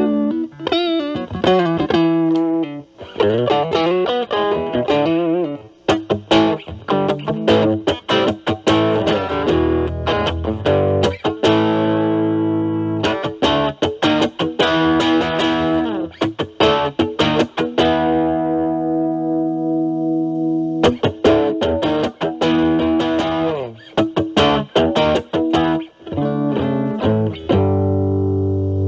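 Electric guitar (Stratocaster) played through an Ibanez Super Metal mini distortion pedal with the Punch knob around 3 to 4, into a Marshall Valvestate amp's clean channel: distorted single-note licks with string bends and vibrato, mixed with held notes and chords that ring out.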